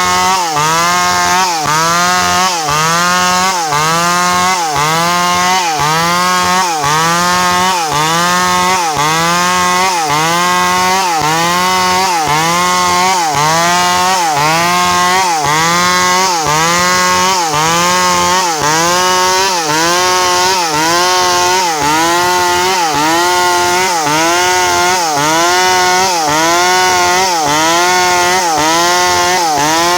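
Stihl 382 two-stroke chainsaw cutting medang wood. Its engine note sags under load and recovers in a steady rhythm about once a second.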